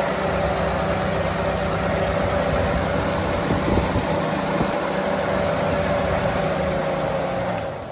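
Pickup truck's engine idling with its electric radiator cooling fans running, a steady whooshing drone. The fans have switched on while the engine is still cold, a fault the owner blames on a melted battery terminal. The sound falls away sharply near the end.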